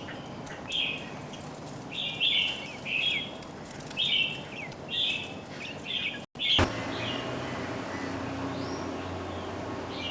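Small birds chirping in short, repeated bursts. About six seconds in the sound cuts out briefly, then gives way to a steady background hum with only a few faint chirps.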